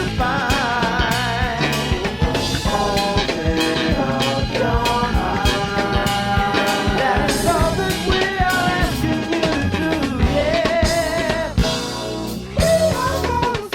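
Rock band recording with a drum-kit beat and a wavering melodic line over the band. The music thins out briefly near the end, then the full band comes back in.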